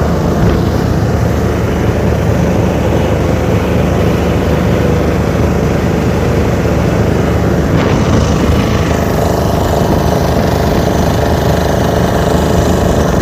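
Speedboat's outboard engines running at cruising speed: a loud, steady drone mixed with the rush of wind and churning wake. The engine tone shifts slightly about eight seconds in.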